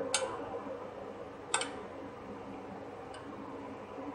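Low steady background with three short faint clicks, the sharpest about a second and a half in.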